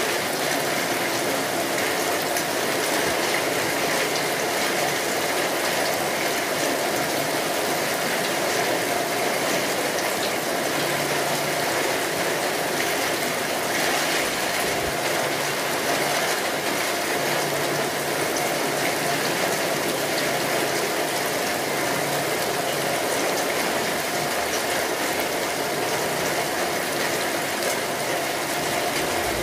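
Steady rain, a dense even hiss of countless falling drops that keeps the same level throughout.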